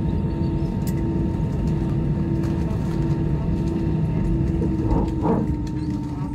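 Airbus A319 passenger cabin after landing: the steady rumble of the engines and air system with a constant hum running through it, and a few light clicks.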